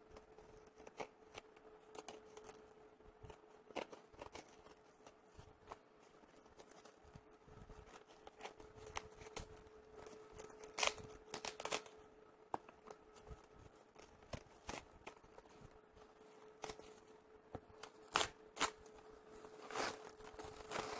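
Plastic courier mailer crinkling as its brown packing tape is picked at and the package torn open, in scattered crackles and rips that grow louder near the end. A faint steady hum runs underneath.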